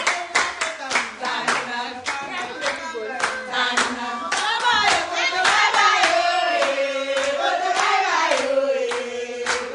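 A group of women singing together and clapping hands in a steady rhythm, about three claps a second. The singing grows louder through the middle.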